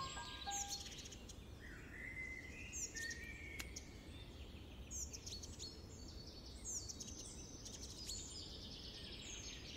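Birds chirping over a faint background hum: repeated short, high, falling chirps, with a lower warbling call about two seconds in.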